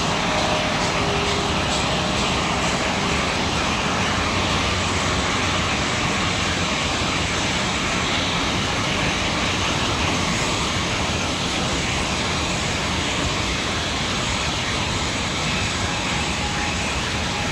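Slovenian Railways series 715 diesel multiple unit pulling away from the platform: a steady diesel engine drone mixed with rolling rail noise, holding an even level throughout.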